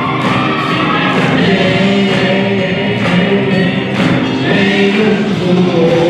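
Live rock band playing a soul song: singing over electric guitars, keyboards and drums, with a steady drum beat.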